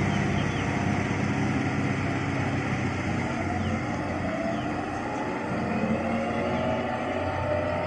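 Preet 987 combine harvester's diesel engine and threshing gear running steadily under load as it harvests rice. There is a continuous drone, with a whine that rises and falls slightly in pitch midway.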